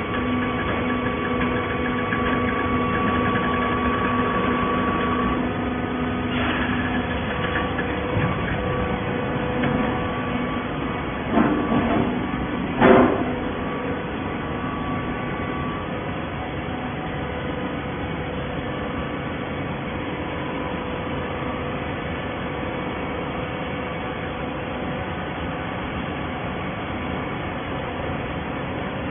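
Horizontal hydraulic baler running: a steady machine hum with a few steady whining tones from its pump and motor. Two loud knocks come a second and a half apart a little before halfway.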